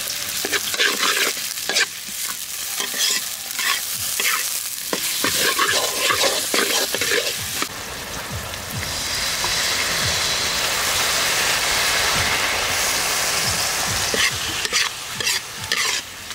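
Metal spatula scraping and clattering against a wok while stirring sliced pig tongue frying in sauce. About halfway through the stirring stops and a steady sizzle carries on alone, then scraping starts again near the end.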